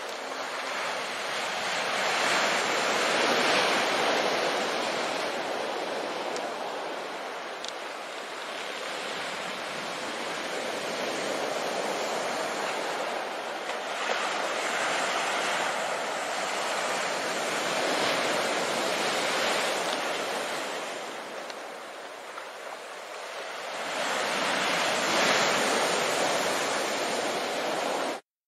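Heavy surf from a rough sea breaking on rocks and a sandy shore, swelling and ebbing every few seconds as each wave comes in; it cuts off suddenly near the end.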